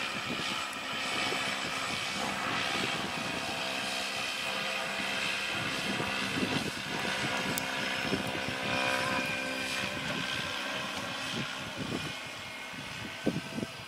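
Tandem-rotor cargo drone flying overhead, its two rotors making a steady drone with a pitched hum. The sound eases slightly near the end, where a few short thumps come through.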